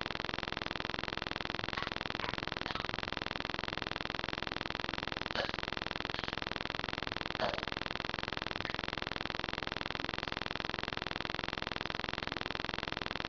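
A steady buzz runs unchanged throughout, with a few faint short sounds of someone drinking soda about two, five and a half and seven and a half seconds in.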